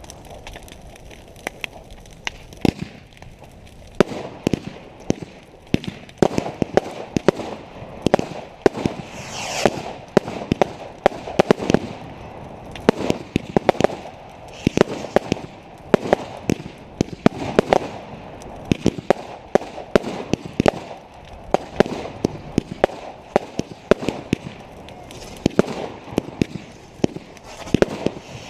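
Fireworks going off: a rapid run of sharp bangs and crackles, several a second, growing denser after the first few seconds, with a whistle about nine seconds in.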